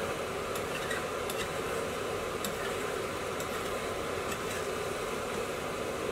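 A spoon stirring thick curry gravy in a metal frying pan, with faint scattered clicks and scrapes against the pan, over a steady rushing hiss.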